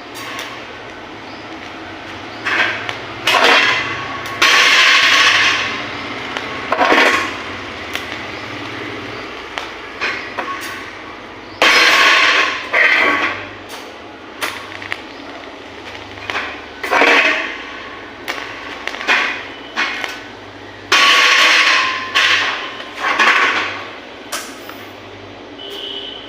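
Steel fabrication work: irregular bursts of harsh hissing noise, each a second or two long, broken up by sharp metallic knocks, over a steady low hum.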